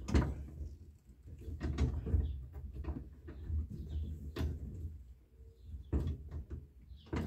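Scattered clicks and knocks from a VW Kombi's gear shift lever as a hand twists and works a screw-on lever extension, trying to thread it on. The threads won't catch.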